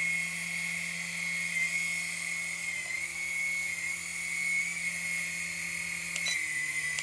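Small coaxial RC helicopter hovering, its electric rotor motors making a steady high whine that wavers slightly in pitch, while it is flown in to land on a low battery.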